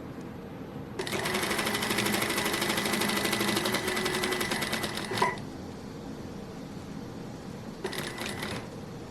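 Sewing machine stitching in a fast, even run for about four seconds, then stopping. A second short burst of stitches follows near the end.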